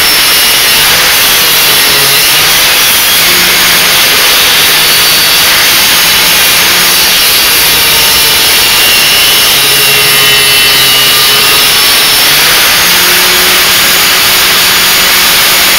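Bench-mounted 900-watt angle grinder running at speed while a steel blade is ground against its wheel: a loud continuous grinding hiss over the motor's whine, the whine wavering slightly as the pressure on the steel changes.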